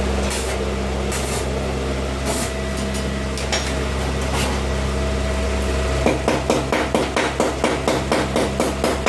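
A steady electrical hum, then from about six seconds in a hammer striking rapidly and evenly, about three or four blows a second.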